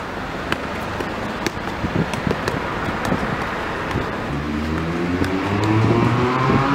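A motor vehicle's engine accelerating, its note rising from about four seconds in, over steady street noise. Scattered light taps of a football being juggled sound throughout.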